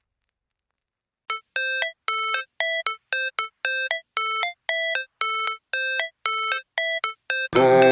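Background music. After about a second of silence, a short pitched synth note with overtones repeats about two and a half times a second. Near the end the full backing track comes in.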